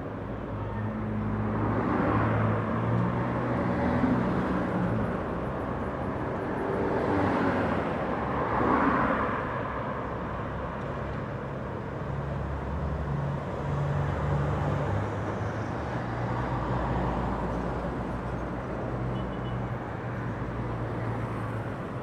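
Street traffic: several cars passing one after another over a steady low engine hum, the loudest pass-bys a couple of seconds in and again around eight to nine seconds in.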